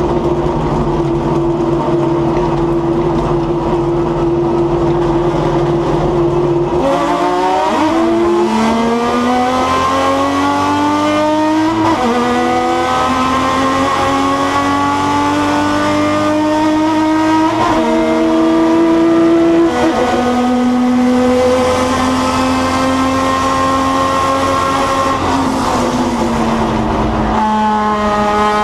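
Race car engine heard from on board, holding a steady note at first, then accelerating hard with the pitch climbing through the gears. Two upshifts drop the pitch partway through, and the car backs off near the end.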